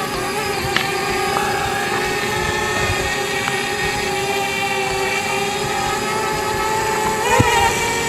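Parrot Bebop 2 quadcopter propellers and motors hovering with a steady, high-pitched whine. The pitch wobbles briefly near the end as the drone adjusts its thrust.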